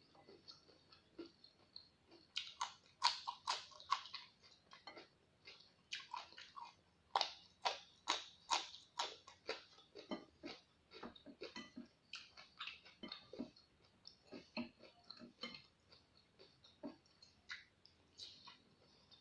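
Close-miked chewing of crisp raw vegetables: loud crunches come in quick clusters, then thin out into softer, wetter chewing toward the end.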